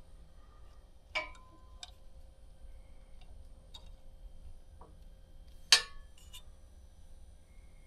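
Scattered clicks and knocks of a stamped steel AK receiver and press tooling being handled and set in place on a shop press. A metal clink about a second in rings briefly, and the loudest knock comes a little before six seconds in.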